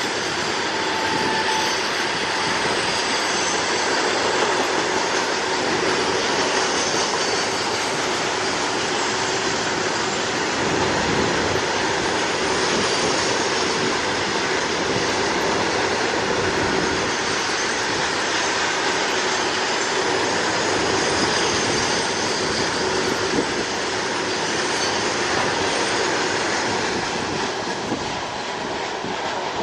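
Loaded freight wagons rolling past close by: a steady rumble and clatter of wheels on the rails, with a thin high wheel squeal over it. The noise eases a little near the end as the last wagon and brake van go by.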